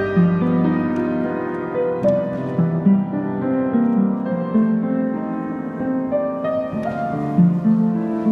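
Upright piano played live as ballet class accompaniment: a classical-style piece with sustained bass notes and chords that change about once a second.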